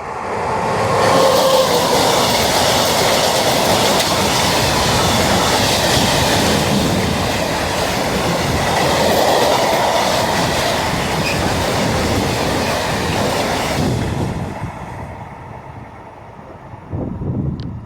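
A train passing close by: the rush and clatter of its wheels on the rails builds in the first second, holds loud for about thirteen seconds, then fades away.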